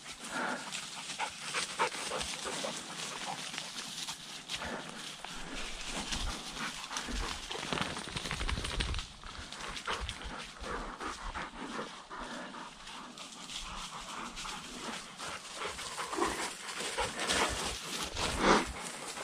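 Deutsch Drahthaar hunting dogs panting and moving about, with a continuous crackling rustle of dry grass and brush. A short, louder noise comes near the end.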